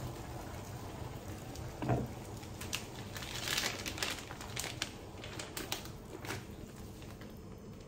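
A plastic soup pouch crinkling as it is handled and squeezed out into a pot, a dense run of crackles through the middle seconds. A single knock comes about two seconds in, before the crinkling.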